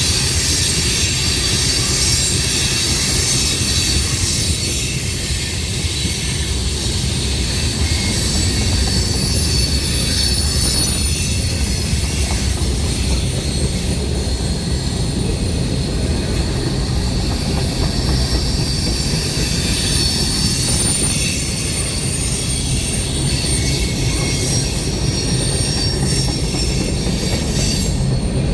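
Cars of a manifest freight train rolling past: a steady rumble of steel wheels on rail, with thin high wheel squeal above it.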